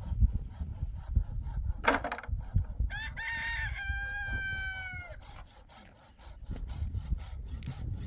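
A rooster crowing once, about three seconds in: a few short broken notes, then a long held note that drops away at the end. Scraping and knocking noises run underneath, with a short harsh burst just before the crow.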